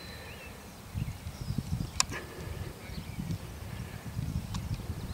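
Outdoor ambience: faint bird chirps over uneven low rumbling, with a sharp click about two seconds in.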